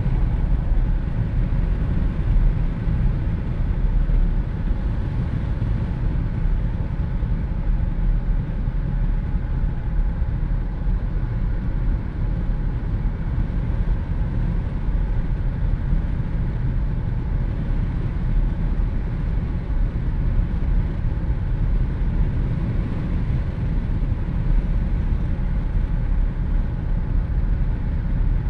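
Steady wind rush with road and engine rumble inside a Jeep Wrangler cruising with its windows down, even throughout with no sudden events.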